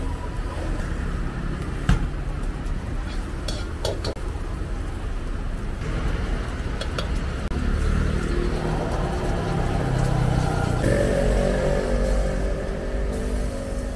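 Gas wok burner running with a steady low rumble, with a few sharp knocks and scrapes of a metal ladle against the wok; the loudest knock comes about two seconds in.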